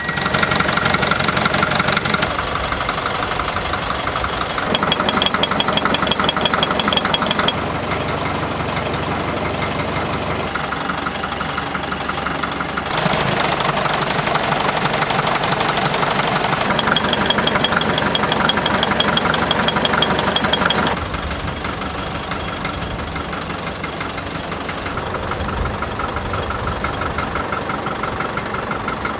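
Csepel D-352 fire engine's diesel engine running at idle with a knocking clatter. The sound jumps abruptly in loudness and pitch several times, about 2, 5, 7, 13 and 21 seconds in.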